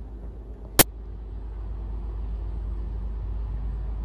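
Steady low background rumble that grows slightly louder, with one sharp click about a second in.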